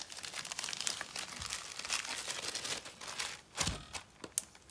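Clear plastic bag crinkling and crackling as bundles of embroidery thread are handled and slid back into it, with a louder rustle a little past three and a half seconds.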